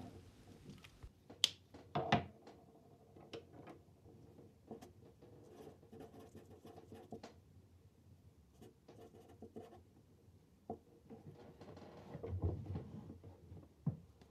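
Felt-tip markers writing and ticking on a paper chart: faint, irregular scratchy strokes and small clicks, with two sharper clicks about a second and a half and two seconds in. A faint steady hum runs underneath.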